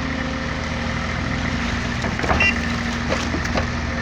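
SANY 140 hydraulic excavator's diesel engine running steadily, with a few light clicks and knocks a little past halfway.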